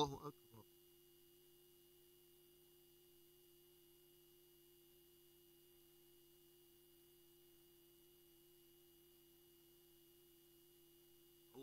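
Near silence with a faint steady hum. A man's chanted voice trails off just after the start.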